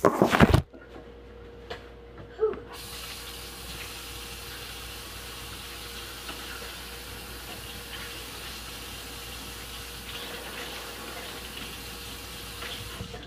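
A few loud knocks and handling noises at the very start. Then, from about three seconds in, a water tap runs steadily into a sink for about ten seconds and shuts off just before the end.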